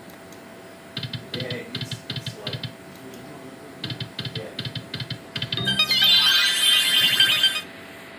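Video slot machine spinning its reels, with a run of clicking ticks, about five a second, for each of two spins. About five and a half seconds in, a short, bright jingle of sliding chimes plays for a small win, lasting about two seconds.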